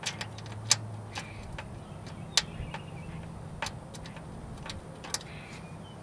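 Light metallic clicks and ticks at irregular intervals as small screws are handled and set into the motherboard's mounting holes inside a metal PC case.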